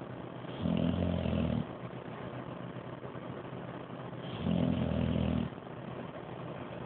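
Dog snoring in its sleep: two low snores, each about a second long, roughly four seconds apart.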